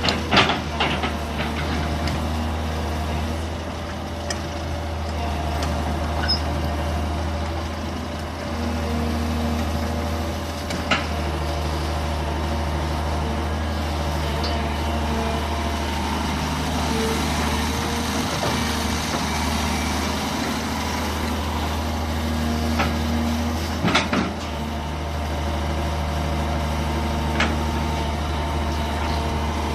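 A Daewoo long-reach excavator's diesel engine running steadily under working load, with the pitch of its hydraulics shifting as the machine works. A few sharp knocks sound over it: a cluster about a second in, then single ones well apart.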